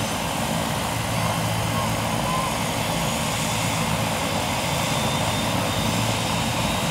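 Helicopter's turbine engine running with its rotors turning: a steady, loud drone with a low hum underneath and a faint high whine.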